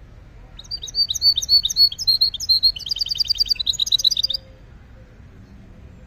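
Caged finch singing a rapid burst of song, quick chirps and trills, starting about half a second in and stopping abruptly after about four seconds.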